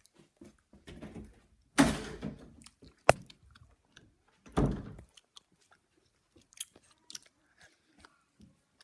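A child chewing food close to the microphone, with small wet clicks of the mouth. Two louder rushing noises come about two seconds and four and a half seconds in, with a sharp click between them.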